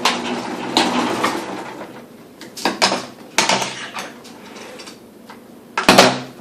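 Kenmore 1813 zigzag sewing machine running a stitch, its hum winding down in the first second and a half. Then come separate clatters and clicks of handling at the machine, with a sharp knock near the end.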